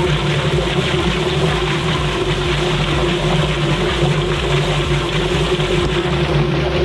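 Drum-style chicken plucker running: a steady motor hum as its rubber-fingered drum spins, with water spraying and the chickens tumbling inside.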